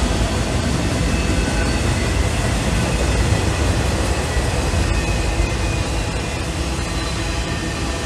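Freight train of multilevel autorack cars rolling past: a steady rumble and rattle of wheels on rail, with faint thin high tones above it, easing slightly near the end.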